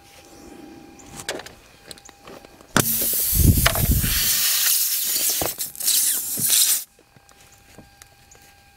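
Pressurised air hissing out of a punctured car tire around the plug insertion tool as it is pushed into the hole. The hiss starts suddenly about three seconds in, lasts about four seconds and cuts off suddenly, with a few small knocks of the tool before it.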